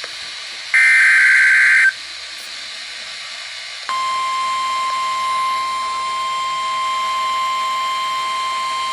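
NOAA Weather Radio alert coming through a radio's speaker. First comes a loud burst of SAME header data, a warbling screech about a second long. After a pause of about two seconds, the steady single-pitch warning alarm tone starts and holds. Together they signal that a new warning is about to be broadcast.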